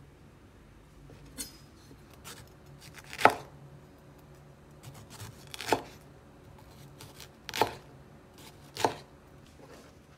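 Large kitchen knife slicing a yellow bell pepper into strips on a wooden cutting board: several unhurried cuts a couple of seconds apart, each ending in a crisp knock of the blade on the board.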